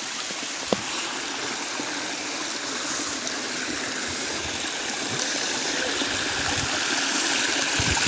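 Rocky stream rushing over boulders, a steady wash of flowing water that grows louder near the end. A single sharp tap comes just under a second in.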